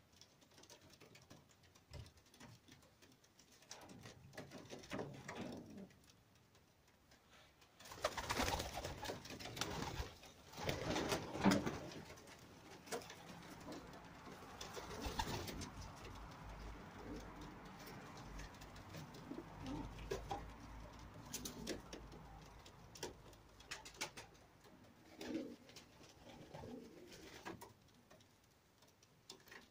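Domestic pigeons cooing, repeated low calls throughout. About a third of the way in there is a louder stretch of rustling noise lasting a few seconds.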